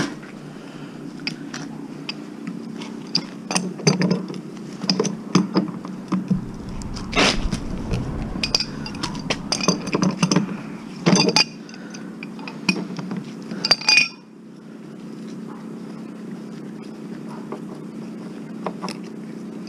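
Metal clinks and knocks as a large, very heavy steel tank is handled and tipped to drain it, over a steady low hum. The knocks come thick for about 14 seconds and then stop.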